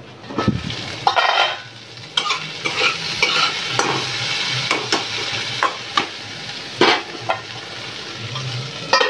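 Chopped okra frying in hot oil in a kadhai, sizzling steadily from about two seconds in as it is stirred, with repeated scrapes and knocks of the spatula against the pan.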